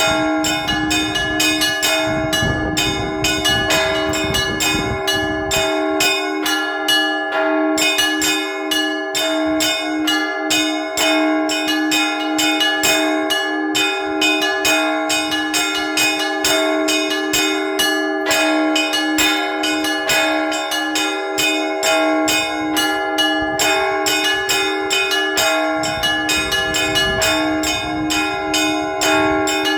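Orthodox church bells rung by hand from the bell tower: a quick, even pattern of strikes, several a second, on the smaller bells over the steady ringing of the lower ones.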